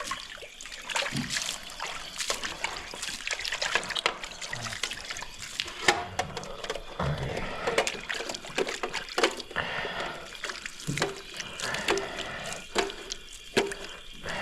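Water trickling and splashing unevenly, with many small irregular splashes.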